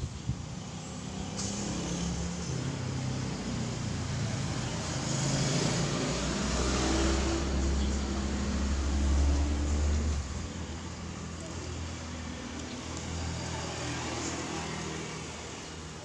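A motor vehicle passing close by: its engine rumble swells, peaks about nine seconds in, then drops away.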